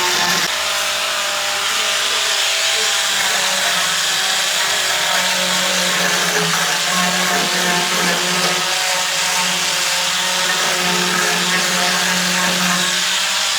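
A handheld power tool running steadily and without pause, with a dense, even noise and a few steady tones.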